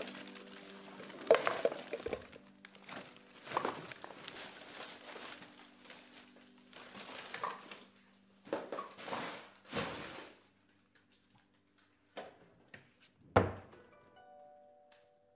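A black plastic bin bag rustling and being handled, with soft thunks, over quiet background music. Near the end a door shuts once with a sharp knock.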